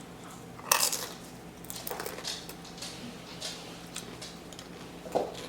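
Close-up eating noises from a plate of nachos: short crisp crunches and clinks of utensil or plate, the loudest just under a second in, with a few softer ones after.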